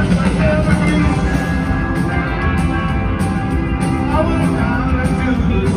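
Live rock band playing: electric guitars, bass, drums and keyboard, heard from the audience.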